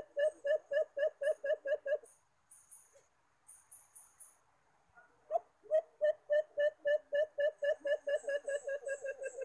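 An animal calling in a rapid run of short, evenly spaced notes, about four a second, that stops after about two seconds. A longer run starts about five seconds in and speeds up slightly toward the end.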